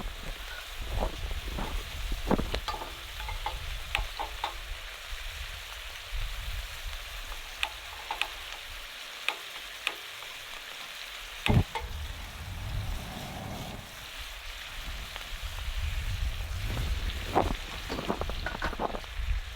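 Food sizzling in a pan: a steady hiss broken by scattered clicks and scrapes, as from a utensil stirring, over a low rumble.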